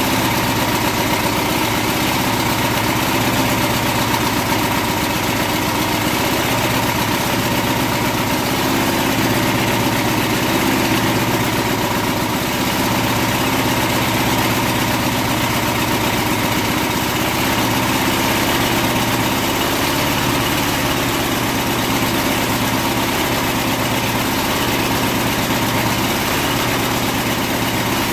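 Small single-cylinder walk-behind lawn mower engine running steadily at constant speed, lubricated with car wax in its crankcase in place of oil.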